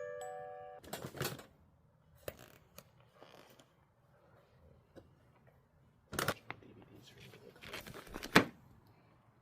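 A few bell-like chiming notes ring out and fade at the start, then handling sounds: light rustling with several sharp clicks and knocks as items are picked up and put down.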